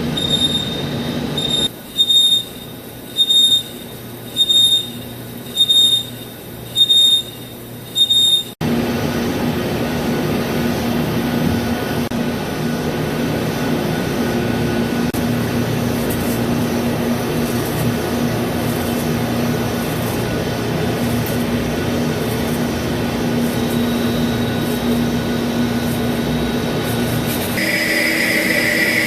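Lathe insert cutting a cast iron tire mold segment. For the first eight seconds or so a high squeal comes about once every 1.2 seconds as the tool goes into and out of the interrupted cut. Then the sound changes suddenly to a steady cutting noise with a low hum.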